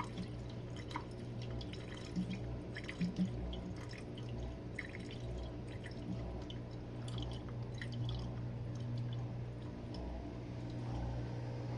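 Jenn-Air dishwasher running its Quick Wash cycle: a steady motor hum with water dripping and splashing inside the tub, and scattered small ticks.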